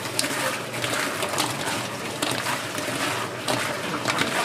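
Irregular clinks, knocks and scrapes over a steady hiss: utensils and containers being handled at a fried-chicken street-food stall.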